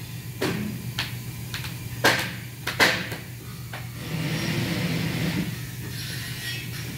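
Sharp knocks and clacks of an aluminium window frame being handled on a workbench, four of them in the first three seconds, the last two the loudest, then a hissing noise lasting about a second and a half, over a steady machine hum.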